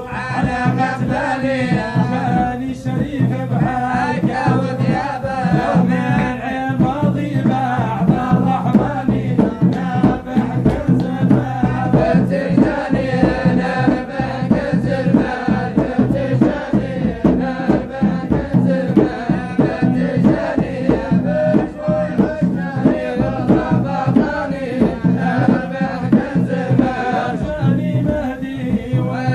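Several men singing a Sufi madih praise chant together, accompanied by a large hand drum struck with both palms in a steady rhythm.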